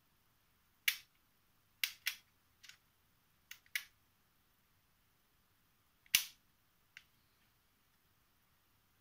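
Small plastic puzzle pieces clicking sharply against each other as they are fitted into place, about eight separate clicks, the loudest about six seconds in.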